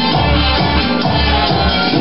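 Latin dance music in a salsa rhythm, with a steady bass beat about twice a second.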